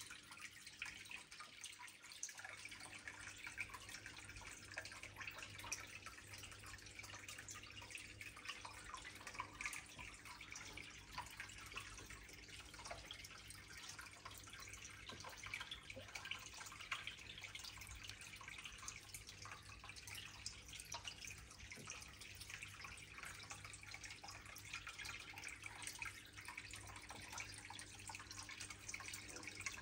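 Faint, steady trickling and dripping of water from a small terracotta-pot tabletop fountain, over a low steady hum.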